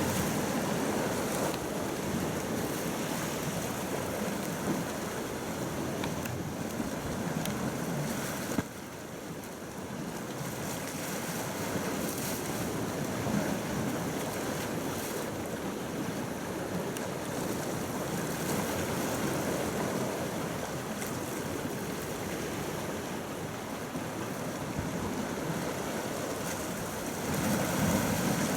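Steady wash of sea water with wind noise on the microphone. There is a short dip in level about a third of the way in, and it grows louder again near the end.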